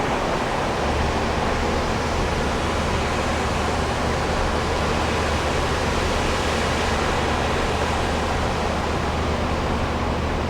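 Steady road and engine noise inside a moving vehicle's cabin: an even rush with a constant low hum.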